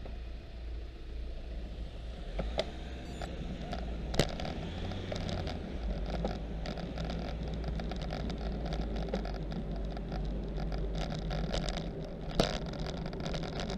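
Wind rumble and tyre-on-road noise picked up by a camera mounted on a moving bicycle, with a few sharp knocks as the bike jolts over bumps.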